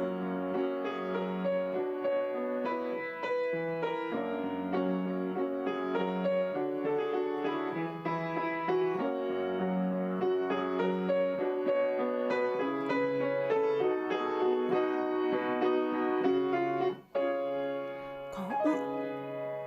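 Piano playing an instrumental interlude of chords and melody notes, with a brief break about three-quarters of the way through before it goes on.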